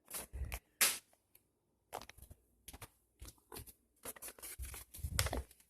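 Paper rustling and crinkling in short, irregular bursts, with a few soft thuds; paper airplanes being handled.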